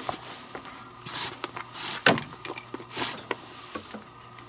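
Leather lace being pulled through the web of a Kubota Slugger infielder's glove: three short swishes, about one, two and three seconds in, with sharp clicks from handling the leather.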